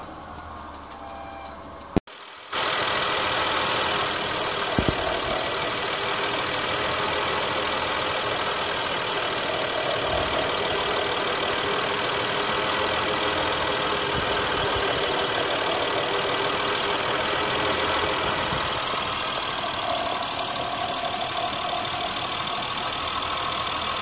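Volvo S90 3.0's B6304S2 24-valve inline-six idling steadily shortly after a cold start at -27C. It is muffled inside the cabin at first; about two seconds in, the sound cuts out briefly and comes back louder and closer under the open bonnet, with a steady high whine over the engine noise.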